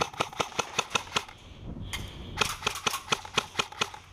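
Airsoft rifle firing two quick strings of shots, about seven a second, each string lasting about a second and a half with a short pause between them.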